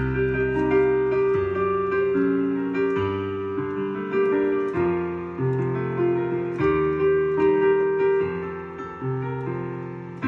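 Digital piano played with both hands: melody over a low bass line, with new notes and chords struck about every second, each ringing on until the next.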